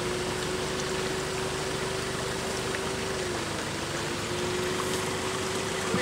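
A 4x4 engine running at steady revs, its pitch dipping briefly a little past halfway and then returning, over a constant rushing noise.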